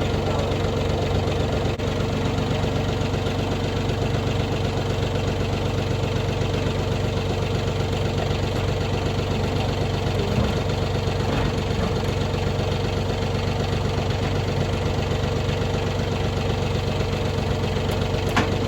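An engine idling steadily at an even pitch, with a couple of sharp clicks or knocks near the end.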